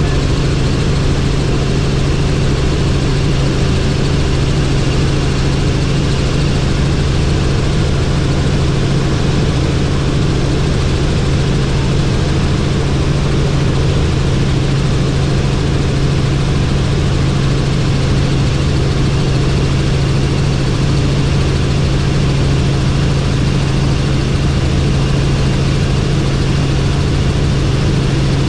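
Helicopter in flight: steady engine and rotor noise with a strong, unchanging low hum.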